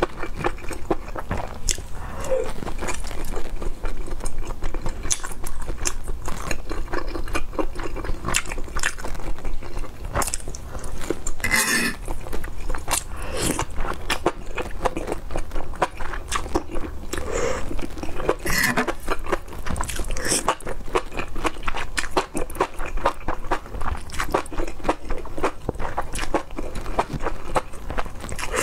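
Close-miked eating sounds through a clip-on microphone: wet chewing and smacking, with slurps as strands of saucy food are sucked in, making a dense run of small clicks and squelches.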